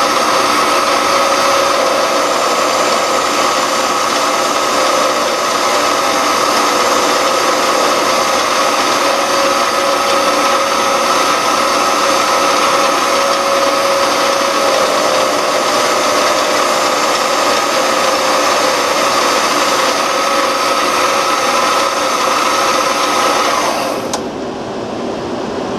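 Mini lathe running steadily with a whine from its motor and drive while turning a small plastic bushing. It is switched off about a second before the end, leaving a quieter steady background hum.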